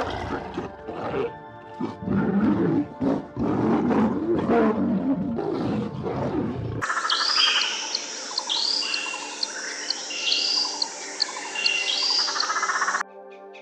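A large animal growling and roaring in a dense run of deep, rasping calls over background music, cutting off abruptly about seven seconds in. Birds then chirp, a short high call repeated about twice a second.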